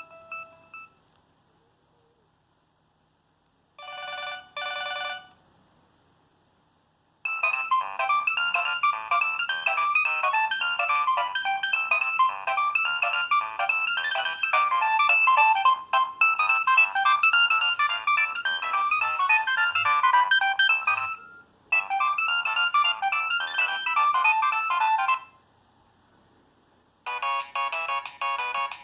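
Preloaded Nokia 6225 ringtones playing one after another with short silent gaps. The end of one tone gives way to a brief two-note chime, then a long, busy melody, then a new tone that starts near the end.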